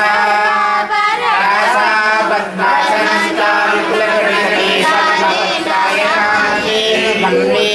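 Several voices singing devotional songs together at the pooja, with a steady low tone held underneath.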